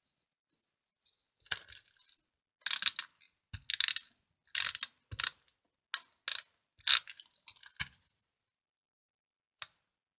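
Snail tape-runner laying adhesive on the back of a paper die-cut, making a quick run of short scratchy clicks and rasps for several seconds, then one more click near the end.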